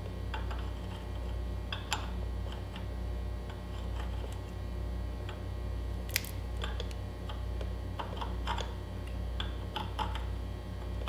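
Thread chaser file scraping and clicking on the damaged threads of a quad's spindle, a scatter of light irregular ticks as it is worked around to clean up cross-threading, over a steady low hum.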